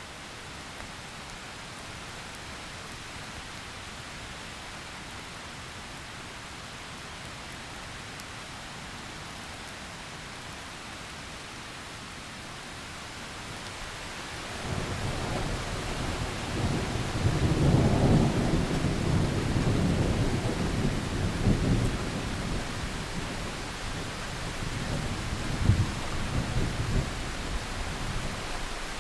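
Steady rain hiss, then about halfway through a long roll of thunder builds up, rumbles loudest a few seconds later and rolls on in waves, with a sharper crack near the end.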